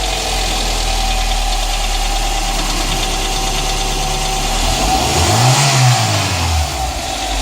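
Engine idling steadily, with the throttle blipped once about five seconds in so the revs rise and fall back to idle.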